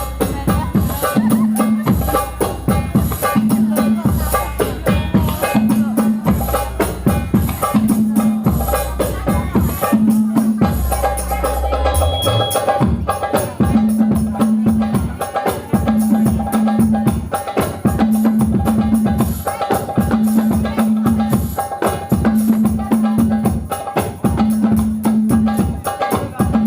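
Loud music with a steady beat and busy percussion, a bass figure repeating about every two seconds, with a short break just before the middle.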